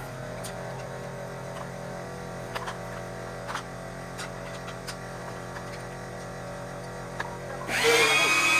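A steady low machine hum with a few light clicks, then near the end a vacuum cleaner switches on, its motor whine rising quickly to a loud, steady pitch.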